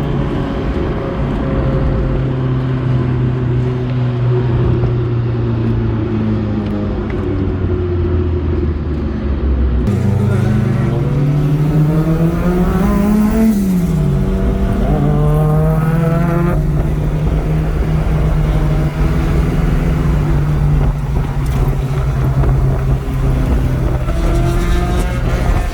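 Car engine heard from inside the cabin on a race track, held at steady revs, then revving up and dropping sharply about halfway through before settling at steady revs again.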